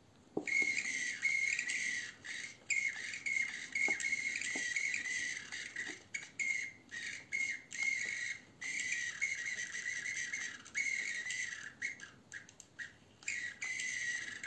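RC buggy steering and throttle servos whining as they drive back and forth, in many short stop-start bursts of a high-pitched buzz. Both servos respond properly to the new 2.4 GHz radio.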